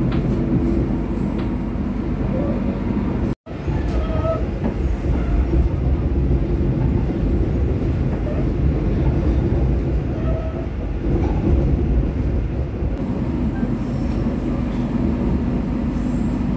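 Argo Cheribon passenger train running along the track, a steady rumble of wheels and coach with faint brief squeals. The sound drops out for a moment about three and a half seconds in.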